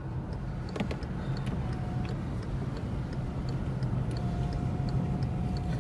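Car driving at low speed, heard from inside the cabin: a steady engine and road hum with a light, regular ticking about three times a second.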